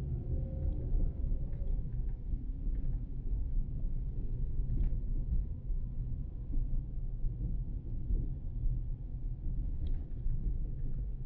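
Car driving on city streets: a steady low rumble of road and engine noise, with a few faint clicks.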